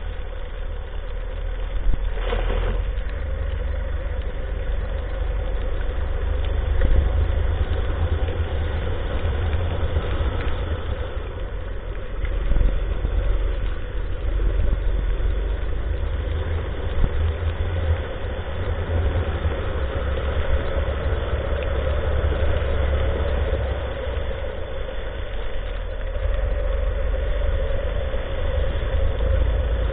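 Rental go-kart engine running steadily as the kart laps the track, heard from a camera mounted on the kart, with a heavy low rumble underneath.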